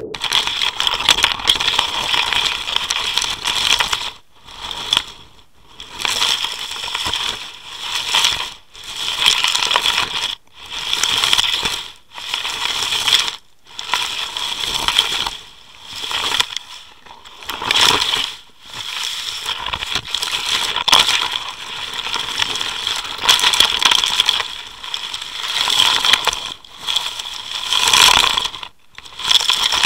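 Water rushing and crackling against an underwater camera housing as it is towed along the seabed on a trolling line. The noise surges and drops away every second or two.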